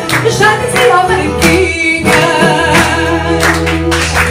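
A fado sung by a woman with Portuguese guitar and classical guitar accompaniment: her voice bends and wavers over plucked strings and steady low notes.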